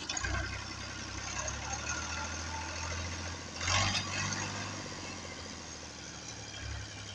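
Ghazi 480 tractor's three-cylinder diesel engine running steadily under load as it pulls a ridger blade through dry soil, with a brief louder rush of noise about halfway through.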